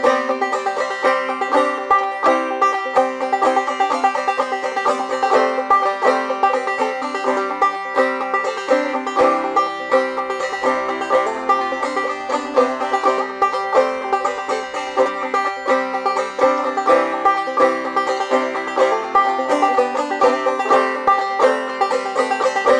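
Five-string banjo played clawhammer style, an old-time tune picked in a quick, steady stream of bright plucked notes.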